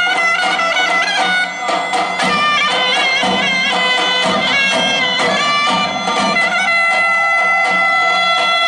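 Turkish zeybek folk dance music led by a loud, reedy wind instrument. It plays an ornamented, wavering melody and settles into a long held note near the end.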